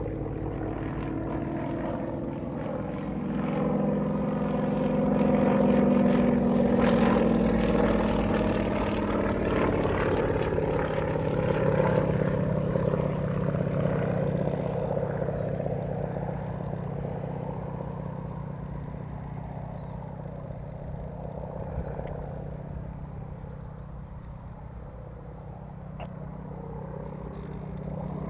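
Yak-52 aerobatic trainer's nine-cylinder radial engine and propeller during a display. Its pitch slides as it passes, it is loudest a few seconds in, and it fades as the aircraft draws away.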